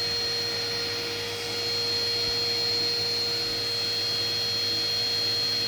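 Eureka PowerSpeed upright vacuum cleaner running steadily, its motor noise carrying a constant high whine.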